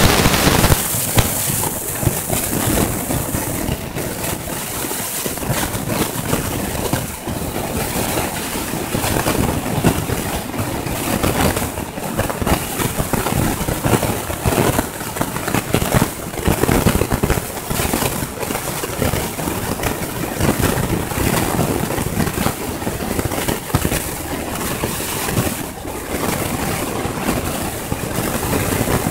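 Road traffic passing on a busy multi-lane road: a steady rush of car and tyre noise, with rough, irregular low rumbling throughout.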